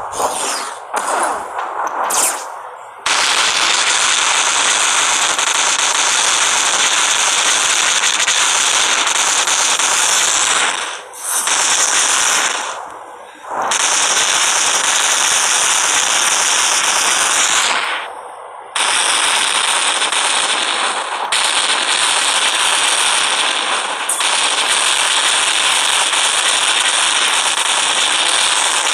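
Animation sound effects from a Vyond effects library. A few short sharp hits come in the first three seconds, then a loud, dense crackling noise runs on, breaking off briefly three times.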